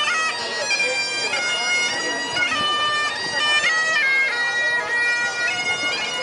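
Bagpipes playing a tune: a melody of held notes stepping up and down over a steady unbroken drone.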